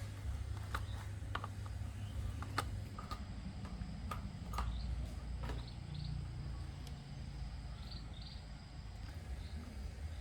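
Scattered light clicks and taps of hand tools and small parts being handled, over a low steady rumble. The clicks come thickest in the first half and thin out after about six seconds.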